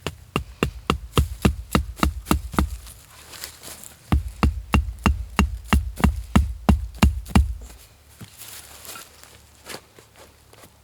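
Rapid, evenly spaced blows of a tool striking wood, about four a second, in two runs with a short pause between them, each blow a sharp knock with a heavy low thud.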